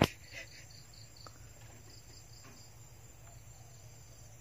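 Crickets chirping faintly in short, repeated high pulses over a steady background, with one sharp knock right at the start.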